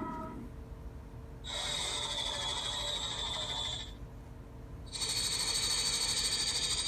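Snake sound effect: two long, harsh hisses with a fine rattling texture. The first lasts about two and a half seconds and the second starts about five seconds in. Just before them, a short pitched tone fades out.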